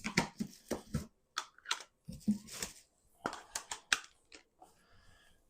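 Packing on a large cardboard shipping box being handled, the corner protectors being pulled off: an irregular string of short crackles, scrapes and knocks.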